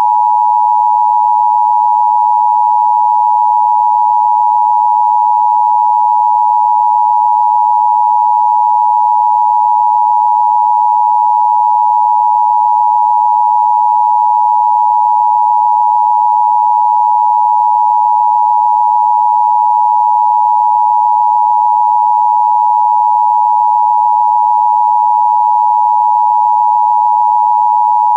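Emergency Broadcast System attention tone: one loud, steady electronic tone a little under 1 kHz, held without a break or change in pitch.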